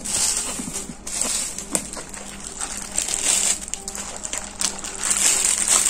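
A thin plastic carrier bag around a drink cup crinkling and rustling close to the microphone as the cup is handled, in irregular crackling surges.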